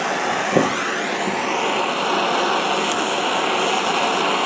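Handheld propane torch burning steadily with a constant hiss, its flame held on the pressed-on inner bearing race of a differential pinion to heat and expand it for removal. A brief light knock about half a second in.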